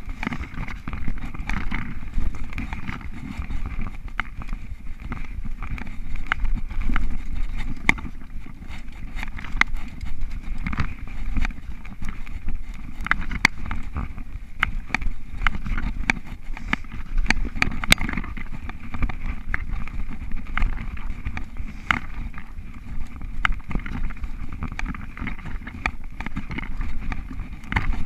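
A mountain bike riding fast over bumpy dirt singletrack: a steady low rumble of tyres and ride noise, with frequent sharp clicks, knocks and rattles as the bike goes over bumps.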